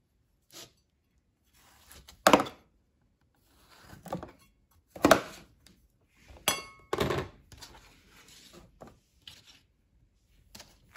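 Kitchen knife cutting rind off a cantaloupe on a cutting board: a few separate thunks of the blade through the melon and onto the board, the loudest about two and five seconds in, with a brief clink around six and a half seconds.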